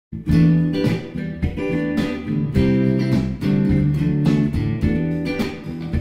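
Instrumental intro music led by guitar, with a steady beat.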